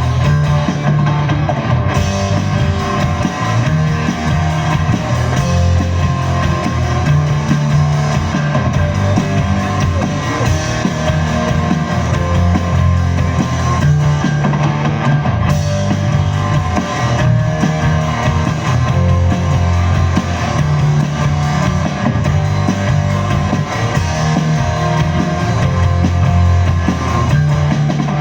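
Live rock band playing an instrumental passage: electric guitars, bass guitar and drum kit, with no singing.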